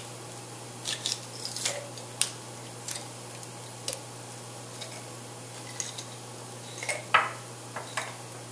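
Scattered light clicks and clatters of kitchen items being handled, about a dozen spread irregularly, the loudest about seven seconds in, over a steady low hum.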